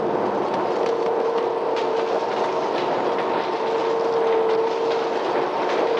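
Printing machinery running: a steady mechanical clatter of many small clicks over a constant hum.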